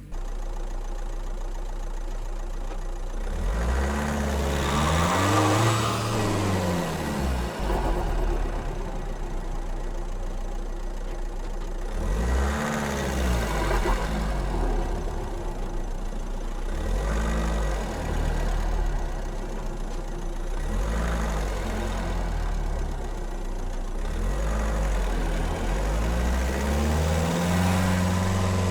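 A car engine idling and revved in short blips about five times, each rev rising in pitch and falling back to idle.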